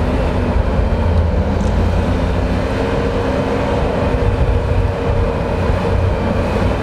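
Off-road 4x4 engine running steadily at low revs: a continuous low rumble with a faint steady hum over it.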